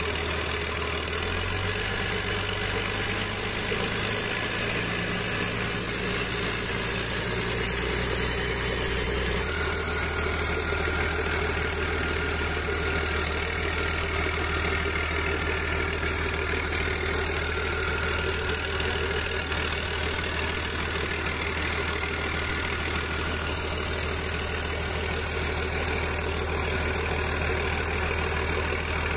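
Freshly overhauled Volvo D7E six-cylinder turbo diesel in an L120F wheel loader idling steadily, heard close up from the open engine bay. Its note shifts twice in the first ten seconds, then holds even.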